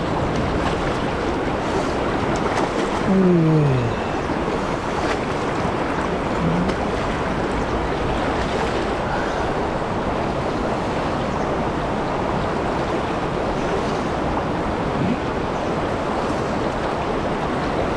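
River water rushing steadily through a shallow riffle, the current high and murky after rain. A short voice sound falling in pitch comes about three seconds in.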